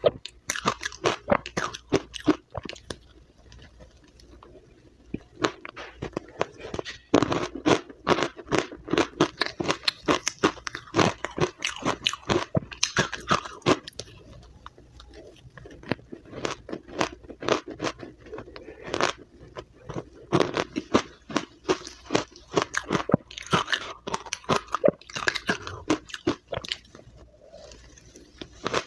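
Close-up crunching and chewing of powdery blended matcha ice: rapid crisp crunches in dense runs, one mouthful after another, with a lull of a few seconds near the start and a shorter one near the end.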